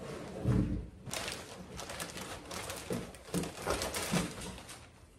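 Plastic shopping bag rustling and crinkling as groceries are lifted out of it, with a few light knocks of items being handled on the table.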